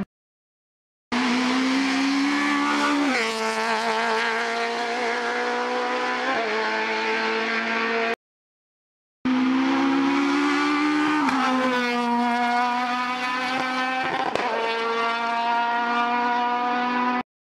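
Competition cars at full throttle on a hillclimb, engines running hard with the pitch dropping sharply at each gear change. There are two separate takes, each starting and cutting off abruptly, with about a second of silence between them.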